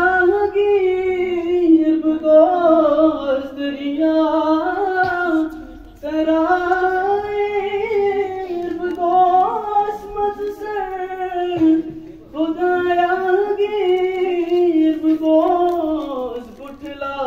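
A boy singing solo into a handheld microphone in long, wavering, drawn-out phrases, with short breaths about six and twelve seconds in.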